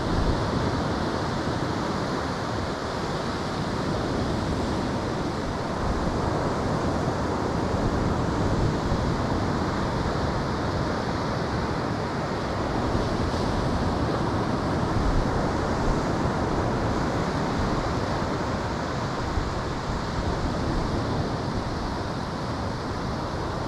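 Steady rushing noise of ocean surf and wind on the microphone.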